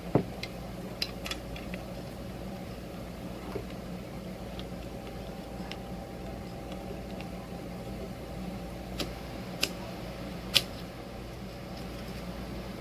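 Scattered small clicks and taps as a camera is fitted and fastened onto the tray of an underwater light: one sharp click at the start, a couple about a second in, then three sharper ones near the end. A steady low hum runs underneath.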